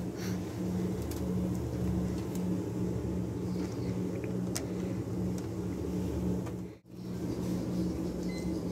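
Steady low hum of supermarket refrigerated display cases, with a few faint clicks and packaging rustles. It drops out for an instant about two-thirds of the way through.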